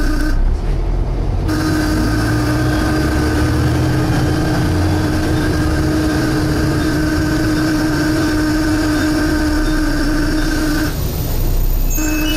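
Volvo B7TL bus heard from inside the cabin: engine rumble under a loud, steady droning whine, the bus's suction noise. The whine drops out briefly about half a second in, comes back about a second later, cuts out again near 11 seconds and returns at the very end.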